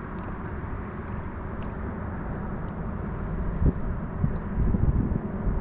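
Wind buffeting the microphone, a steady low rumble, with a few light knocks in the second half.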